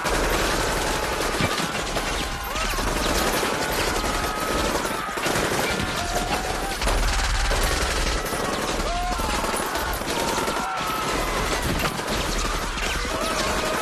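Sustained rapid gunfire: many guns firing at once in a dense, unbroken fusillade.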